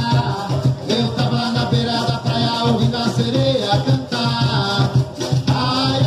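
Live carimbó music: hand drums keep a steady beat under a melody line, with maracas shaken along.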